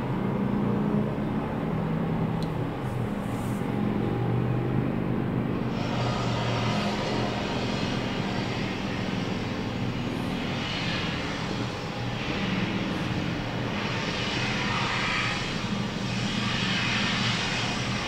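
A steady engine drone with a low, even hum, joined about six seconds in by a rushing noise that swells and fades.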